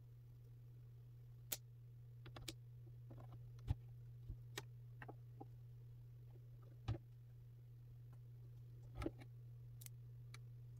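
Faint steady low hum with scattered small clicks and ticks at irregular times, the sharpest about four seconds in and again near seven and nine seconds.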